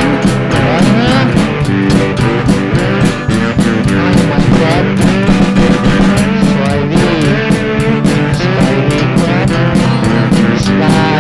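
Indie pop/indietronica music: guitar over a steady, even beat, with gliding, wavering notes above a held low line.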